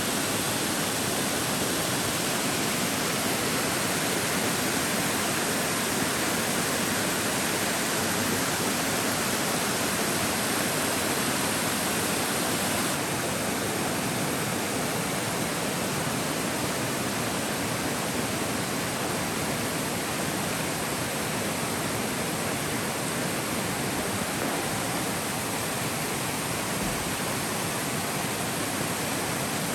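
Rushing stream water, a steady even rush that softens slightly in the upper range about 13 seconds in.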